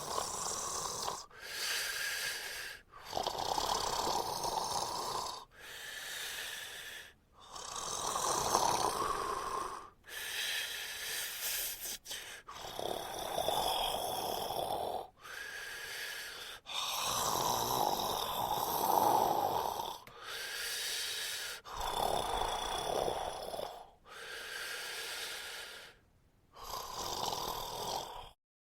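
Adult man snoring in a steady rhythm, a breath cycle roughly every four to five seconds, louder rasping snores alternating with softer breaths.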